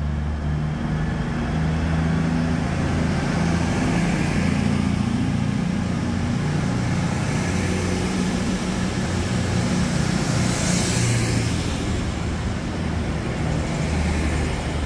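Class 221 Super Voyager diesel-electric multiple unit departing, its underfloor diesel engines working under power as the train draws slowly away: a steady low drone with several engine tones. A short high hiss comes about ten seconds in.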